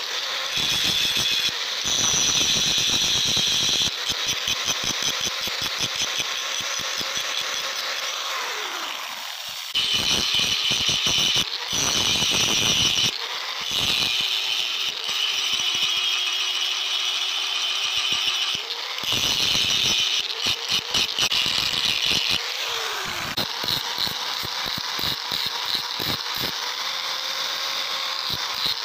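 Angle grinder's abrasive disc grinding a steel hammer head shaped from a pickaxe: a loud, steady, high-pitched grinding that comes in several long passes with short let-ups between them.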